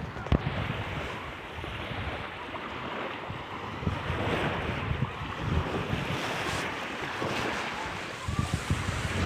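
Wind rumbling across the microphone over the wash of sea water and waves, with a brief knock about half a second in.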